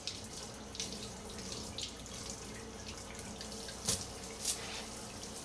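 Hot water running from a kitchen tap into a stainless steel sink as a makeup brush is rinsed under the stream by hand. Two brief louder sounds come near four seconds in.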